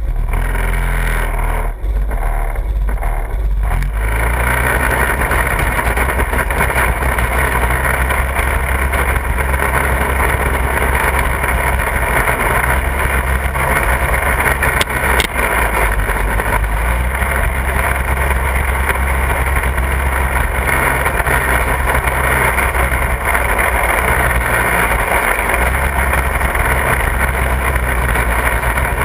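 Off-road buggy's engine running steadily as it drives along a dirt trail, heard from a camera mounted on the buggy. The engine noise eases off briefly about two seconds in, then carries on evenly, with a single sharp knock about halfway through.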